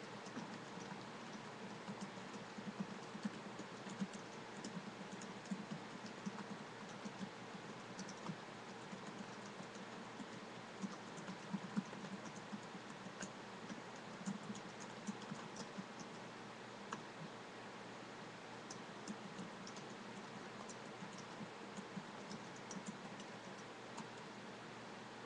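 Typing on a computer keyboard: a steady stream of irregular key clicks, with a few louder taps, over a faint background hiss.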